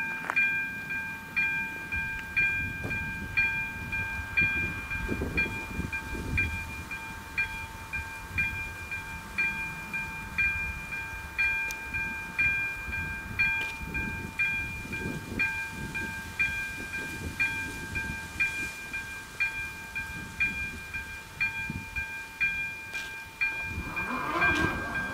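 Railway level-crossing warning bell ringing in a steady, regular repeated ding while the crossing is activated ahead of an approaching train. Near the end the barrier drive starts up as the booms begin to lower.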